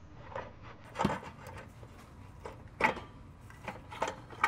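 Irregular metallic clunks and knocks as the stock driver's side catalytic converter section of the downpipe is worked loose from the exhaust and studs by hand, the loudest about a second in, near three seconds, and at the very end.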